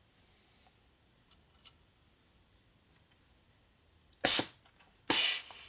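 Pneumatic valve spring compressor's air ram working on a Harley Evo cylinder head: two short hisses of compressed air, the first about four seconds in and a longer one a second later, as the valve spring is let back up onto its keepers.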